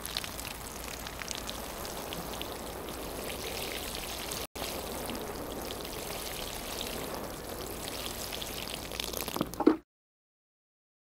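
Rainfall pattering steadily with many separate drop ticks. It drops out for an instant about halfway. Near the end a brief louder hit comes just before it stops suddenly.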